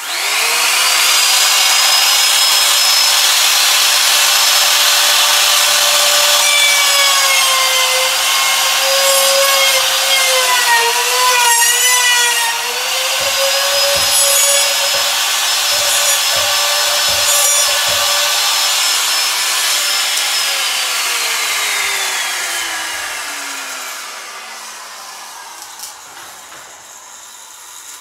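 DeWalt router starting up and running at full speed with a steady high whine while it routes a latch-plate mortise in the edge of a wooden door. The pitch sags and wavers in the middle as the bit cuts under load. Then the router is switched off and winds down, its pitch falling steadily as it fades.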